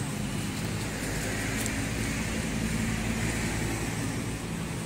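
Steady low hum of a motor vehicle engine running nearby.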